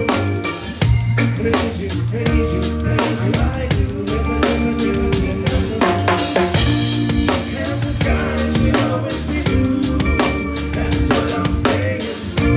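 Live rock band playing, picked up from the drummer's position so the drum kit is loud and close: steady kick, snare and rimshot hits over sustained bass notes and other instruments.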